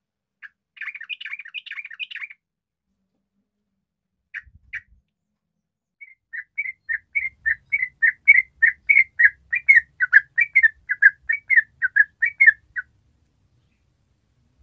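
Yellow-vented bulbul singing. It gives a short burst of chattering notes, a brief two-note call, then a long rapid run of bubbling notes, about four a second, lasting several seconds.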